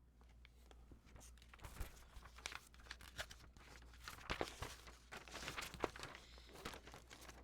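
Plastic and paper model-kit packaging crinkling and rustling as it is handled, in irregular crackles.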